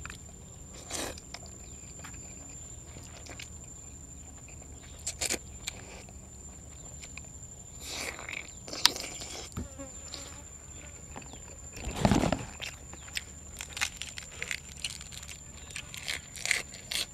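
A person eating rice noodles in curry with fresh vegetables: chewing and mouth sounds, with scattered smacks and short crunchy bursts, the loudest about twelve seconds in.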